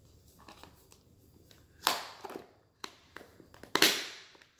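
Plastic bento lunch box lid being set on and pressed shut: several sharp plastic clicks and knocks, the loudest near the end.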